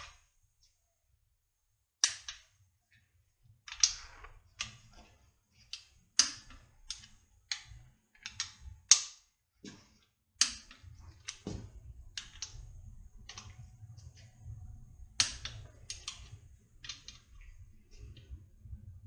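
Torque wrench clicking on the crankshaft main bearing cap bolts as they are tightened to about 42 ft-lb: a string of sharp metallic clicks at uneven intervals, roughly one or two a second.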